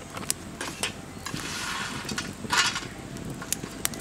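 Scattered light clicks and a soft plastic crinkle as a plastic cooking-oil bottle is handled over an empty iron karahi, with a crow cawing once about two and a half seconds in.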